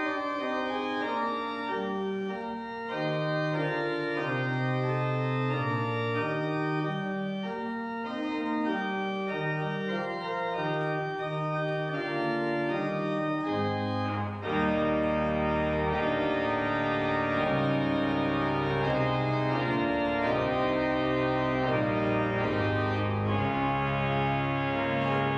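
Organ postlude: sustained chords over a slowly moving bass line. About fourteen seconds in, it swells fuller and a little louder, with deeper bass notes added.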